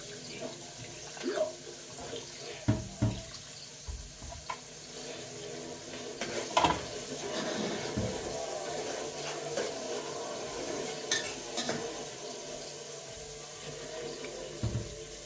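Running water with scattered clinks and knocks of dishes or pots being handled, the sharpest few in the first seven seconds.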